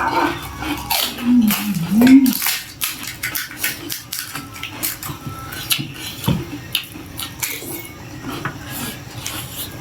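Eating sounds of a pani puri mukbang: crisp puri shells crunching and chewing, with clinks of spoons and plates in many short, irregular clicks. A few short hummed voice sounds about one to two seconds in.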